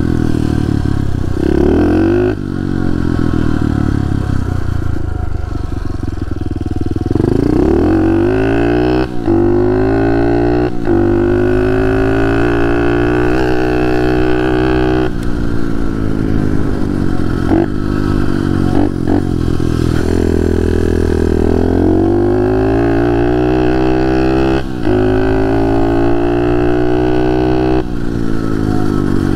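Pit bike engine being ridden, revving up and easing off over and over, its pitch climbing and dropping several times.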